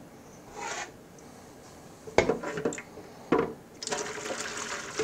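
A measuring cup scooping chicken stock from a stainless stockpot, with a knock about two seconds in and another a second later. Then the stock is poured through a mesh strainer into a plastic container: a steady splashing of liquid from near the end.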